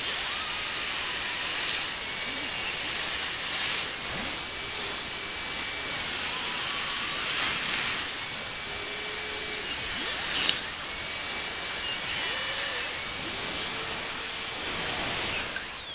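Dentist's high-speed drill whining at a high pitch. The pitch dips briefly several times, then falls away as the drill winds down and stops at the end.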